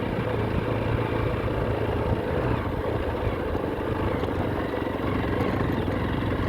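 An engine running steadily with an even low hum, no change in pitch.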